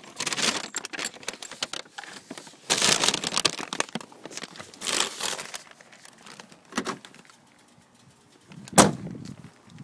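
Handling noise from a phone carried in a purse: several spells of rustling and rubbing against the fabric, with one sharp knock near the end.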